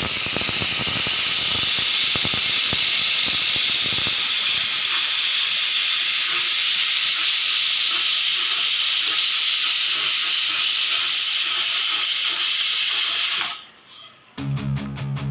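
Pressure cooker releasing steam through its whistle: a loud, steady hiss of escaping steam that cuts off suddenly near the end. This release is the sign that the cooker has reached full pressure.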